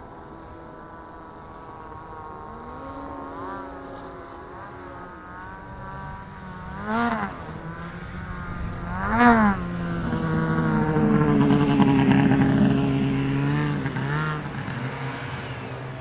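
Snowmobile engine idling with three short throttle blips, then running louder and steadier for a few seconds past the middle before easing off.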